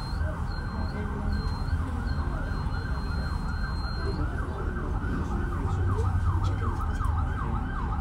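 Emergency vehicle siren in a fast yelp, repeated sweeping whoops that quicken towards the end, carrying up from the street over a steady low rumble.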